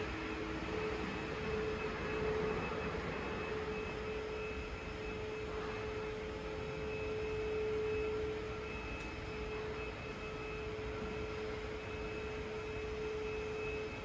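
A steady hum with one clear held pitch over an even background hiss of room noise.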